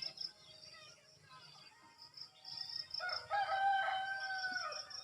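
A rooster crows once, a single long call held and then falling away at the end, starting about three seconds in. Insects chirp faintly in a rapid, high, pulsing trill.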